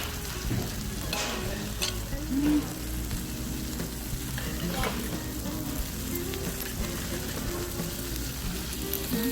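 Pork sizzling on a grill plate heated by an oak-wood fire: a steady frying hiss, with a few brief clicks about one and two seconds in.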